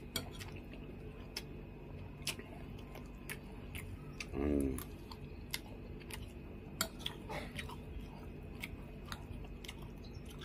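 A man chewing a mouthful of rice with soft beef-skin rambak, tofu and chayote, with wet lip smacks and sharp mouth clicks scattered throughout. A short hum comes about four and a half seconds in.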